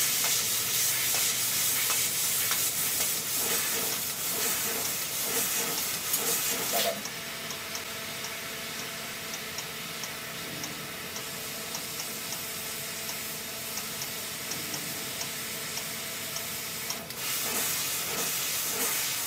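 Laser tube-cutting machine cutting a steel rectangular tube: a steady hissing sizzle from the assist gas jetting through the cut. About seven seconds in it drops to a quieter hiss with faint regular ticking, then grows loud again near the end.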